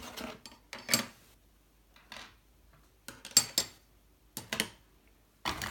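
Small hard plastic and metal 3D-printer kit parts, including a flat back-cover plate, being handled and set down: a handful of light clacks and clatters in short clusters with quiet gaps between.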